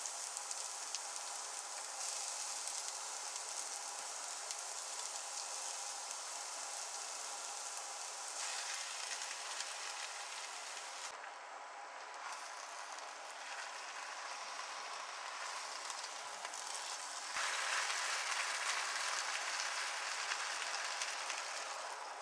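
Food frying in oil in a pan, a steady sizzle that gets louder about three-quarters of the way through.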